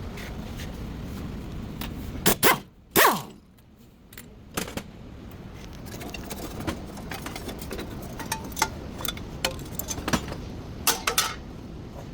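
Metal hand tools clinking and knocking during front hub bearing work. Three louder strikes come about two to three seconds in, the last one ringing briefly, followed by a run of light clicks and taps.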